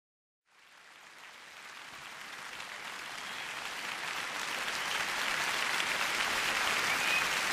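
Crowd applause fading in from silence about half a second in and growing steadily louder.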